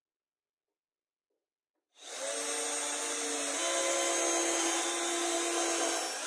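After two seconds of silence, a hand-held electric drill/driver starts abruptly and runs steadily, drilling into a plywood panel. Its motor whine steps down in pitch about a second and a half after starting and then holds.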